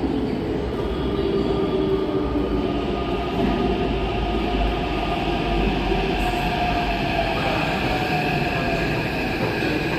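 Hyderabad Metro train running on its rails: a steady low rumble with several high whining tones that slowly drift in pitch.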